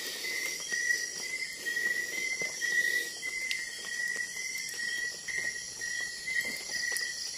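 Crickets or similar night insects chirring: a steady high-pitched trill broken into short repeated pulses.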